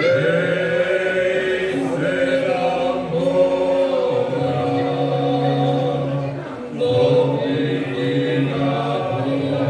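Men's folk singing group singing a Slavonian folk song a cappella in several parts, holding long sustained notes, with a brief breath between phrases about six and a half seconds in.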